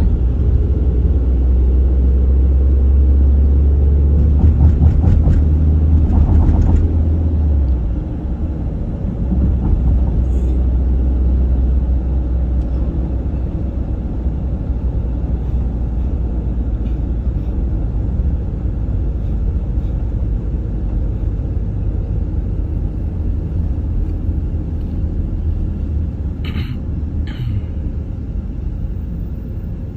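Low road and engine rumble heard from inside a moving vehicle's cabin, louder for the first seven or eight seconds and then easing, with a quick rattling patter around five seconds in. Two brief higher-pitched sounds come near the end.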